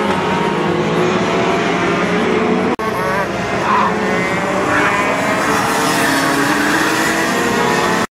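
Go-kart engines running on a track, a steady engine drone. The sound briefly drops out about three seconds in.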